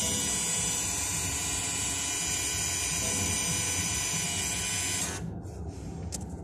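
Electric parking brake actuator motor on the rear brake caliper of a BMW X1 F48 running with a steady whir, driving the caliper piston back to release the rear brake for a pad change. It stops about five seconds in.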